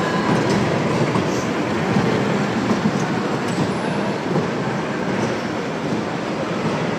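A miniature ride-on mall train running on its track: a steady rumbling noise that eases slightly after about four seconds as the train moves off.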